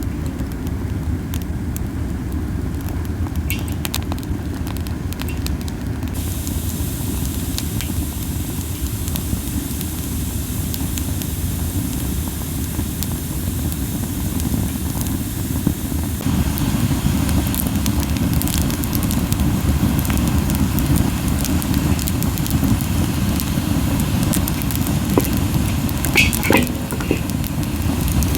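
Camellia-wood campfire burning hot, with a steady low, puffing rumble from the strong flames and scattered crackles and pops. The crackling grows thicker about halfway through, with a few sharper pops near the end.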